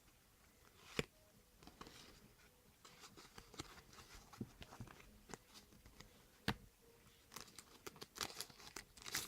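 Trading cards being handled and set down: faint scattered clicks and rustles, with a sharper tap about a second in and another past the middle, and busier crinkling near the end.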